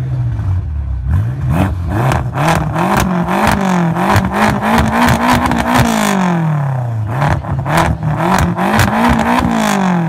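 Tuned 720 hp 2016 BMW M5's twin-turbo V8 revved twice through its exhaust: the pitch climbs for about four seconds and falls back, then climbs again near the end, with rapid crackling during each rev.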